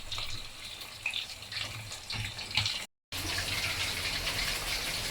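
Starch-coated pork ribs deep-frying in a wok of hot oil, a steady sizzling hiss of the first fry at medium-low heat. The sound drops out completely for a moment about three seconds in.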